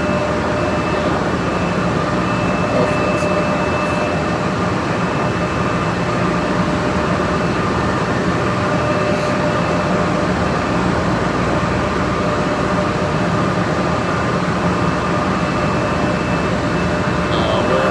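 Steady drone of running machinery with a constant high whine, a few faint ticks, and a short high beep near the end.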